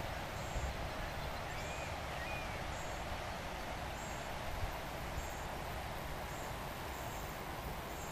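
Steady rushing of the Lachine Rapids on the St. Lawrence River, with wind buffeting the microphone. A short, high chirp repeats about once a second over it.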